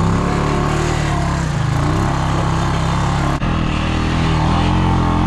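Honda Rancher 350 ATV's single-cylinder four-stroke engine running under load through mud and shallow water, its pitch rising and falling with the throttle. There is a brief break in the sound about three and a half seconds in.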